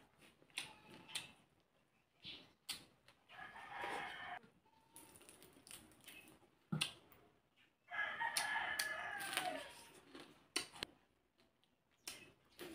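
A bird calls twice, each call lasting about one and a half to two seconds, the second one louder. Between and around the calls, scattered small clicks and smacks come from fried fish being picked apart by hand and chewed.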